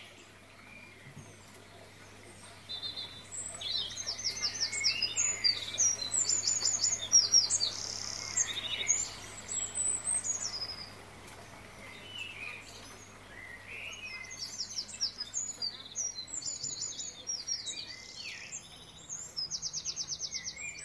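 Small birds chirping and calling in quick repeated trills, in two busy stretches with a short lull near the middle.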